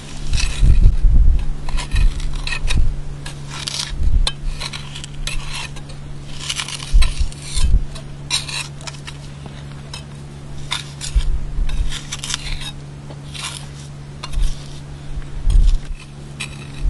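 Small steel trowels scraping and clinking against sandstone and mortar in irregular short strokes as mortar joints are worked, over a steady low hum.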